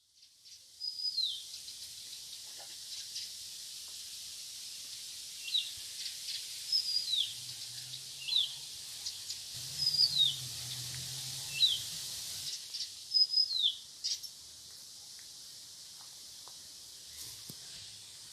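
A small songbird repeats a short, high call that slides down in pitch, about once every second and a half, over a steady outdoor hiss.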